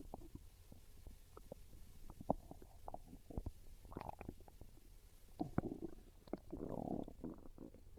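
Human stomach growling with hunger: a string of small pops and squelches, a couple of short gurgles, and a longer gurgle about two-thirds of the way through.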